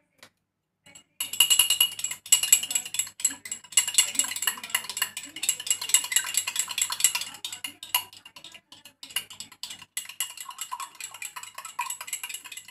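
A raw egg with a pinch of salt being beaten in a glass tumbler: rapid, continuous clinking of the utensil against the glass. It starts about a second in and turns lighter past the middle.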